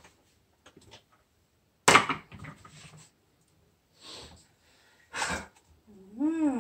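Sparse kitchen handling sounds at a blender jug: a sharp knock about two seconds in and another clatter about five seconds in, with faint clicks between. A short rising-and-falling voice sound comes just before the end.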